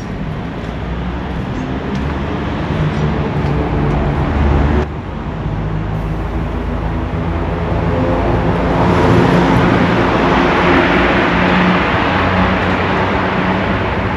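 Road traffic: a motor vehicle's engine running close by, with a sudden break about five seconds in, then growing louder toward the middle as a vehicle passes, and easing off near the end.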